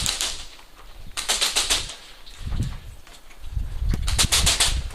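Airsoft electric rifle firing three short bursts on full auto: rapid, evenly spaced clicks. One burst comes right at the start, one about a second in, and one near the end.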